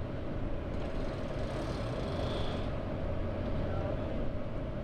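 Steady low engine hum running evenly, with a faint steady whine above it.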